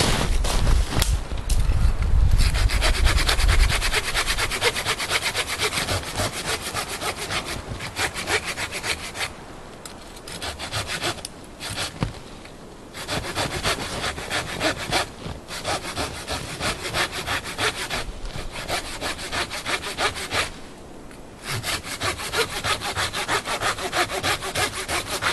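Folding Coghlan's 180 Sierra pruning saw cutting through the trunk of a dead tree about 4 to 5 inches thick, in quick back-and-forth strokes with a few short pauses.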